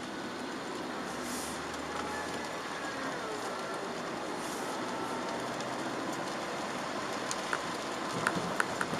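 Chevrolet Aveo 1.4 petrol driving on a wet road, heard from inside the cabin: a steady hiss of tyres and rain over the engine, with faint whining tones that slide in pitch as the speed changes. A few sharp ticks come in near the end.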